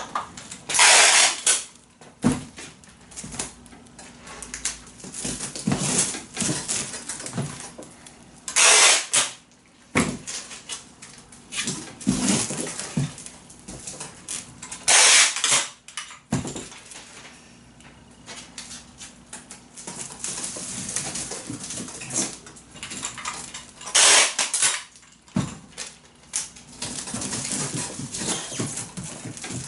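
Packing tape in a handheld tape-gun dispenser, with several loud rips about a second long as tape is pulled off the roll. Between the rips, the plastic dispenser clicks and clatters as it is handled and reloaded with a fresh roll.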